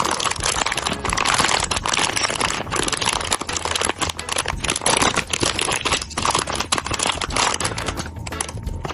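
Plastic blind-box bag crinkling and rustling as it is torn open and handled, with a dense run of small crackles.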